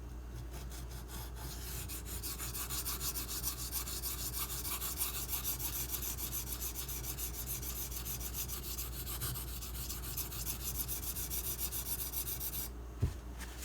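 Steel knife blade scraped in rapid, even back-and-forth strokes across a 1000-grit whetstone, grinding toward the edge's apex at the tip. The strokes stop about a second before the end, followed by a single knock.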